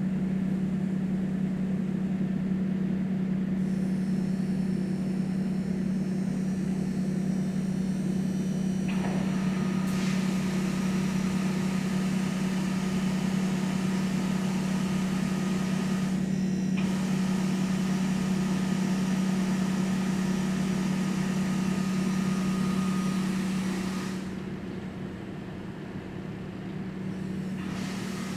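CNC tool grinder running with a steady motor hum. From about nine seconds in, coolant sprays and hisses over the grinding wheel as it grinds a cutter held in the chuck, with a faint high whine alongside. Near the end the spray and hum drop off as the cycle stops.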